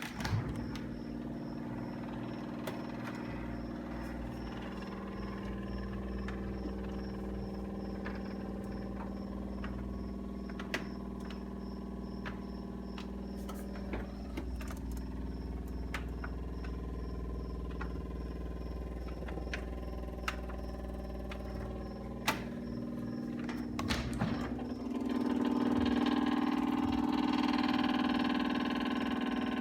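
Sharp SJ-PD58V-BK refrigerator running with a steady mechanical hum and vibrating, with scattered clicks and ticks; the hum swells louder near the end. The owner finds this shuddering a disappointing fault in a fridge less than a month old.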